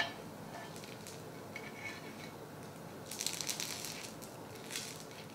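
Steel spatula pressing and sliding a crispy folded dosa on a hot cast iron tawa, giving faint crackling and scraping over a low steady hiss. A short cluster of crisp crackles comes about three seconds in, and another near the end.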